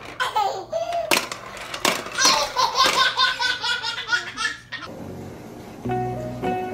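A toddler laughing, a long run of hearty belly-laugh pulses, with a few sharp clicks among them. About three-quarters of the way through the laughing stops and background music with held notes takes over.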